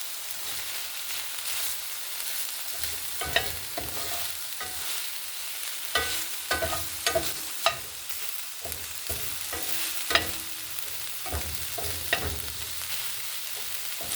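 Ground-turkey chili being stirred in a pot on the stove: a steady sizzle from the cooking chili, with the stirring utensil knocking and clinking against the pot several times.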